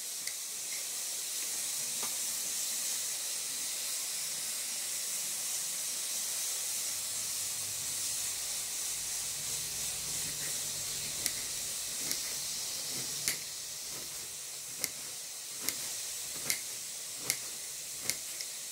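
Kitchen knife cutting green vegetables on a hard counter top: sharp single taps of the blade, sparse at first, then about one a second in the second half, over a steady hiss.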